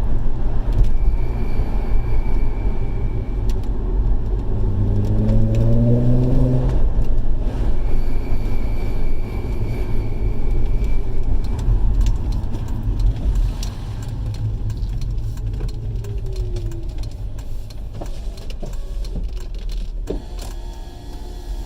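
Road and engine noise from a VW Golf Mk4 R32's 3.2 VR6 on the move. Twice, a thin, steady high-pitched whine comes in and holds for a few seconds. The whine is heard when coasting off the throttle, and its cause is unknown: VW suspects a vacuum leak, while others suggest the EBC RedStuff brake pads.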